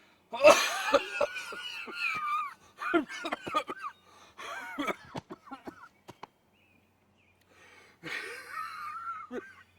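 A man's voice lets out a loud, drawn-out 'ohh', then a string of short coughs. After a pause, another drawn-out vocal sound comes near the end.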